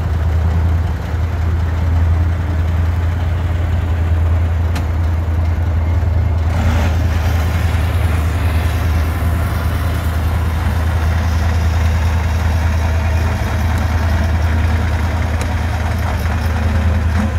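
Off-road trial truck's engine running steadily at low revs as the truck crawls slowly through a steep, sandy section.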